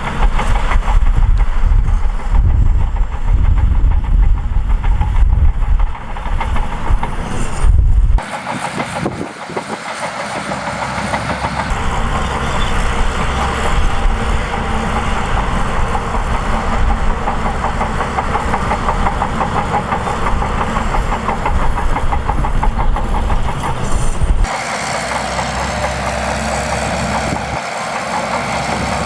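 Shantui DH17C2 bulldozer's diesel engine running steadily while the dozer works. The sound shifts suddenly about 8 seconds and about 24 seconds in.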